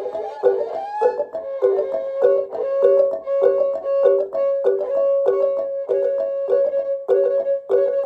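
Small metal bowls struck with sticks in a quick, even pattern of about three strokes a second, alternating between a lower and a higher ringing note.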